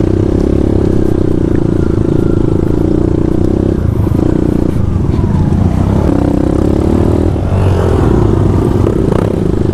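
Motorcycle engine running under load as the bike climbs a steep trail, its note steady but shifting in pitch a couple of times, about four seconds in and again around six to seven seconds in.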